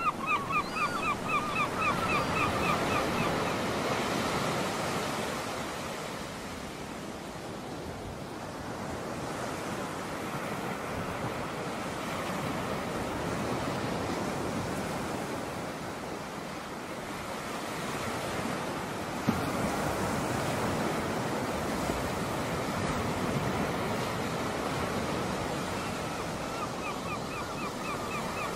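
Waves washing on a sandy shore, the wash swelling and easing every several seconds. A bird chirps in a quick repeated series at the start and again near the end, and there is a single sharp click about two-thirds of the way through.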